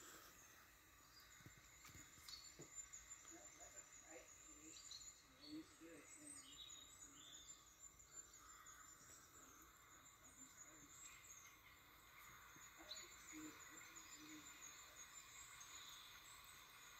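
Near silence: faint room hiss, with a few soft, short low tones scattered through it whose source cannot be made out.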